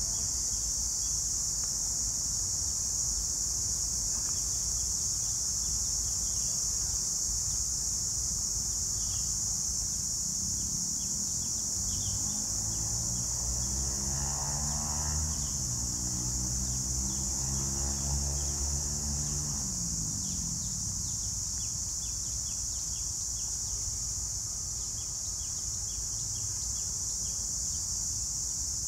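Cicadas droning steadily in the park trees, with a few short bird chirps. A motor engine passes in the middle, its hum rising and then falling in pitch from about 12 to 20 seconds in.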